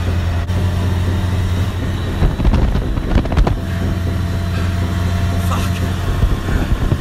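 A vehicle driving fast on a gravel road, heard from inside the cabin: a steady engine and road drone, with a run of knocks and rattles from about two to three and a half seconds in as it jolts over the rough surface.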